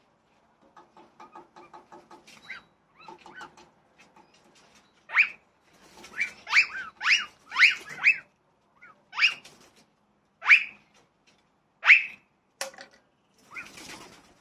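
Birds calling: a run of quick stuttering notes, then a series of loud, sharp calls, each sweeping down in pitch, and a short burst of wing flapping near the end.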